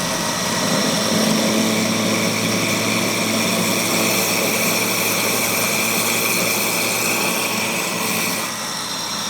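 Homemade grain grinder running steadily while grinding a test batch of field corn, a machine hum with a steady high whine. Its sound thins and drops a little near the end.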